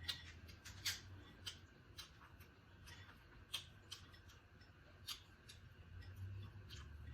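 Close-miked eating sounds: a string of sharp, irregular clicks and smacks from chewing and handling seafood, over a faint low hum.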